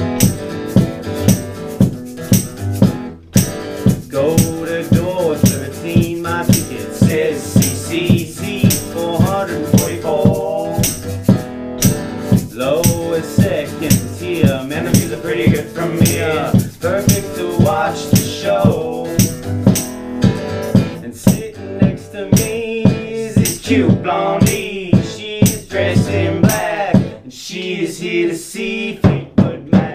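Live acoustic band: strummed acoustic guitar and a singing voice, with percussion played with drumsticks keeping a steady beat of sharp strikes.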